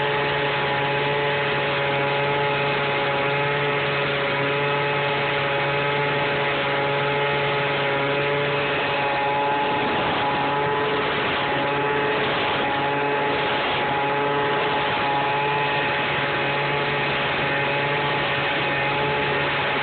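Blower motor of a homemade PVC corn blower running steadily, pushing air through the pipe that carries deer corn out of the can. It holds a steady hum with fixed tones and never changes speed.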